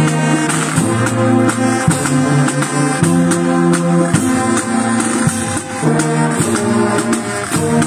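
Marching brass band playing a tune, sousaphones holding low notes that move from one to the next, over a steady percussion beat.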